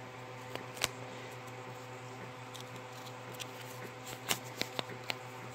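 Small toy pieces being handled: one sharp click about a second in, then a quick run of light clicks and taps near the end, over a steady low hum.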